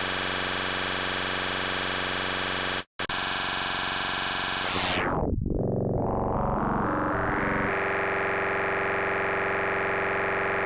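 Software synthesizer drone from u-he Bazille: a sustained buzzy tone, a sine wave fractalized with a saw. It cuts out for a split second about three seconds in, then its brightness falls away quickly and climbs back in steps before holding steady.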